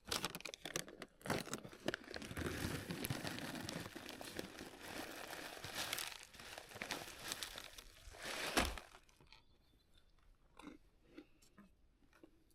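Crinkling and crunching of granola and its packet, dense and continuous for about nine seconds, with a louder knock near the end, then only a few faint clicks.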